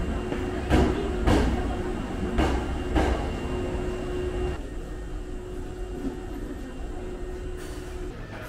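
Electric commuter train standing at an underground station platform: a steady hum of its running equipment under a low rumble that drops away about four and a half seconds in. Four sharp knocks in the first three seconds.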